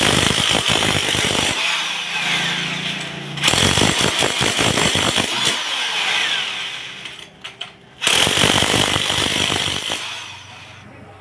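Handheld electric demolition hammer chiselling into a concrete pillar, a rapid hammering in three bursts with short easings between, dying away shortly before the end.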